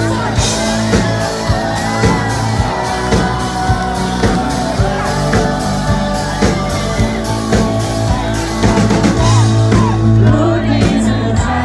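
Rock band playing live: a male lead singer over electric guitars, keyboards and drums, with a steady drumbeat.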